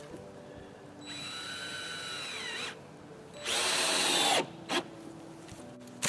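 Cordless drill driving screws into a 2x4 wood frame: two runs of the motor whine, the second shorter and louder, each dropping in pitch at the end as the screw seats. A short knock follows.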